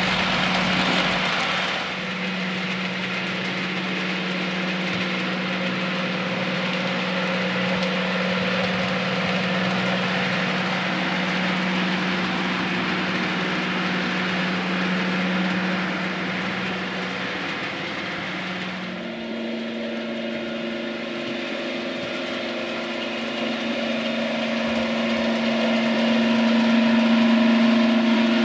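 Model railway locomotive running on the layout, with a steady diesel-engine drone from its DCC sound decoder. The drone steps up to a higher pitch about two-thirds of the way through.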